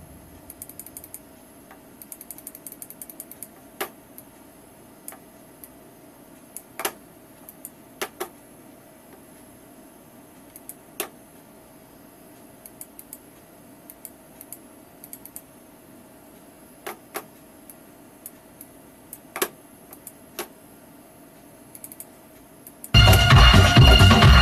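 Scattered single clicks of a computer mouse, with short runs of rapid small ticking, during a pause in playback. Loud disco music starts again near the end.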